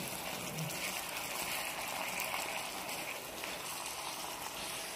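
Spicy stir-fried pork in red pepper sauce sizzling steadily in a wide frying pan over high heat, with chopsticks stirring it.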